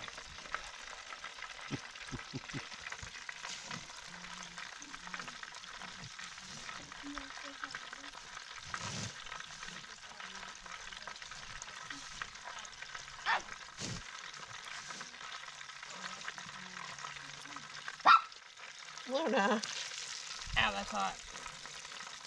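Tilapia frying in hot oil: a steady sizzle, with a few sharp knocks, the loudest about eighteen seconds in.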